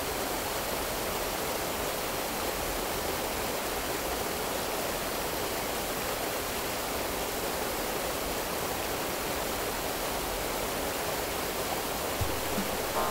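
A steady, even rushing noise that holds without change. A few faint musical notes come in near the end.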